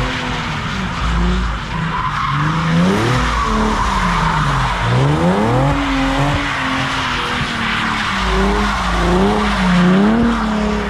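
Car engine revving up and falling back over and over, under steady tyre squeal, as the car spins its tyres in a sideshow stunt.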